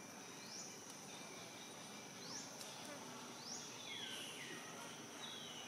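Insects buzzing steadily, with short rising high notes repeating every second or two and a few falling calls in the second half.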